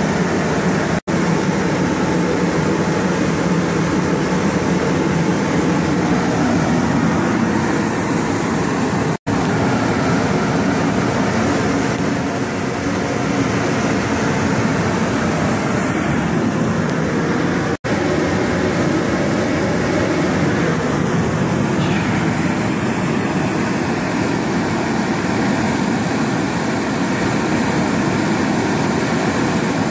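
Three propane venturi burners, black-pipe barrels with bell-reducer flares, firing together with a loud, steady rushing roar.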